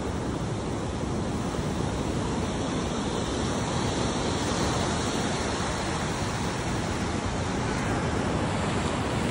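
Surf washing in over a sandy beach: a steady, unbroken rush of breaking and receding waves.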